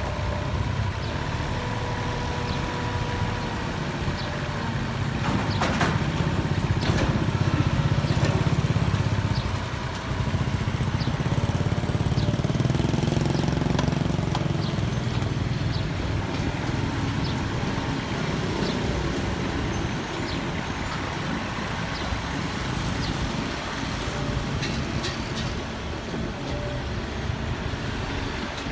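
Kubota excavator's diesel engine running steadily. It works harder twice, rising in level for a few seconds each time, with scattered sharp metallic clanks or knocks over it.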